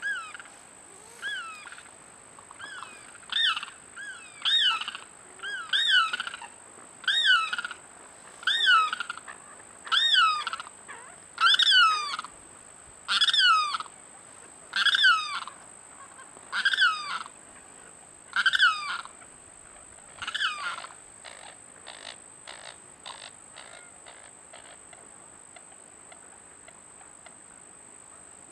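A limpkin calling over and over: about fifteen loud cries, each rising then falling in pitch, one every second and a half or so. After about twenty seconds they give way to a quick run of shorter, fainter notes that fade out.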